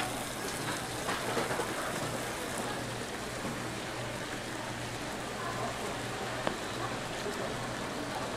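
Food sizzling steadily on a hot flat-top griddle, over a low steady hum. A sharp metal clack right at the start, as a spatula presses on the steel egg mould, and another single click later on.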